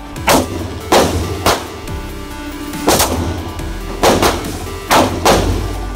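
Pistol shots in an indoor shooting range, about seven at uneven intervals, each sharp crack with a short echo off the range walls, over background music.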